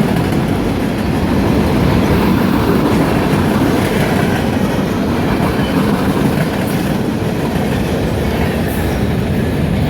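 CSX freight train's cars rolling past, a steady loud rumble of steel wheels on the rails.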